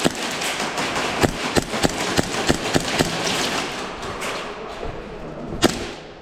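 Airsoft game action: irregular sharp clicks and knocks, a few a second, over a steady rustling hiss, with one louder knock near the end.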